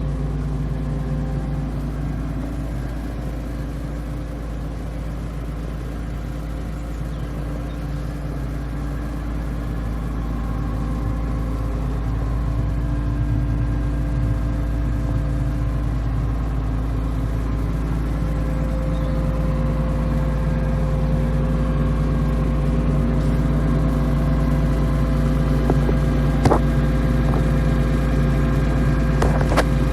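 Atlas 190 LC tracked excavator's diesel engine running steadily, growing a little louder over the span, with two short sharp knocks near the end.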